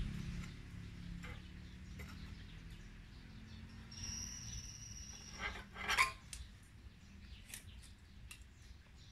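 Light metallic clinks and taps of hand tools against a metal frame, over a low background rumble that fades in the first few seconds. A thin high ring comes about four seconds in, and the loudest, sharper clink follows around six seconds in.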